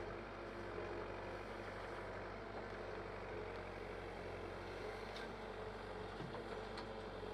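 Diesel engine of a Caterpillar backhoe loader running steadily while its arm digs and lifts a bucket of earth, with a couple of faint clicks in the second half.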